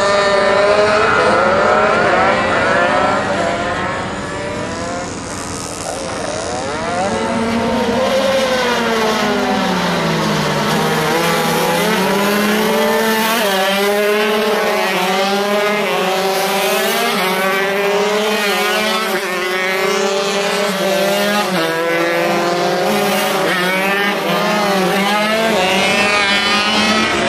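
A pack of MiniGP minibike engines racing at high revs, many overlapping engine notes rising and falling as the riders accelerate and shift, with a short lull a few seconds in before the sound builds again.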